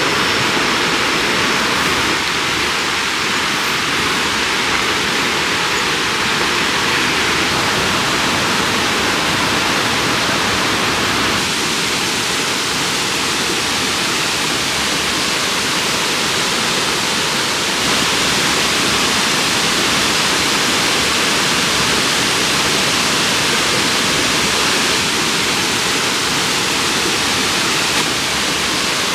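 Tiu Kelep waterfall: a loud, steady rush of falling water.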